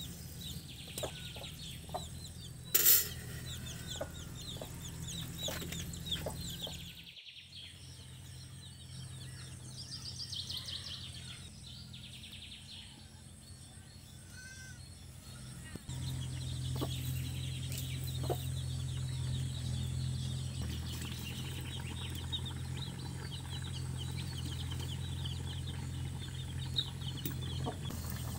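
Chickens clucking on and off over a steady low hum that grows louder about halfway through, with a short loud noise about three seconds in.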